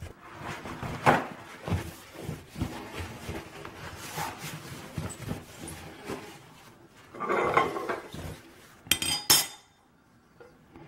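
Scrubbing and wiping on a porcelain sink with a sponge, scouring powder and a paper towel, with scattered light knocks. A sharp metallic clink about nine seconds in as a metal faucet base plate is set on the sink.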